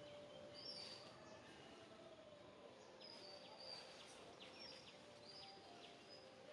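Faint outdoor ambience with birds chirping now and then: short high chirps and quick downward-sweeping notes over a low hiss.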